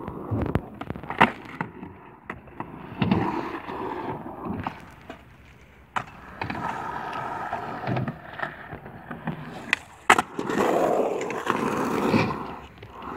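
Skateboard wheels rolling and grinding in surges that rise and fall, broken by several sharp clacks of the board striking the ground. The loudest clack comes about ten seconds in.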